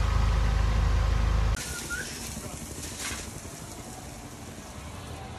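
Caterpillar 963B track loader's diesel engine running with a loud, steady, deep rumble that cuts off abruptly about a second and a half in. Quieter outdoor background follows, with one short high chirp.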